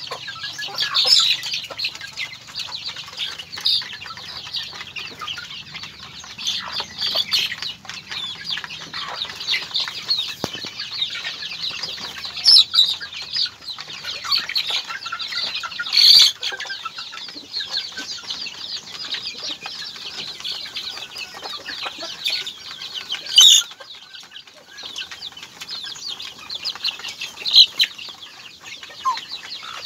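A flock of native chickens, hens and young birds, feeding at a trough: a constant high-pitched chatter of cheeping and clucking. A handful of short, sharp louder sounds stand out, about five times.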